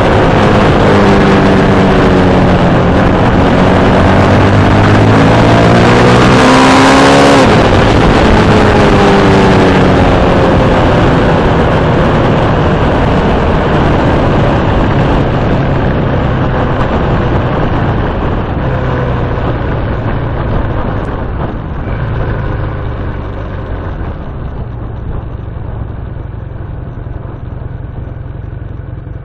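Road vehicle engines passing close by. The engine note rises as they approach, peaks and drops sharply about seven seconds in, then fades slowly as they move away.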